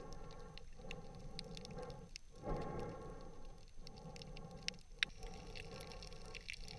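Muffled underwater sound picked up through a camera's waterproof housing while swimming: a murky water rush that swells and dips about every second and a half, with scattered sharp clicks and crackles, one sharper click about five seconds in.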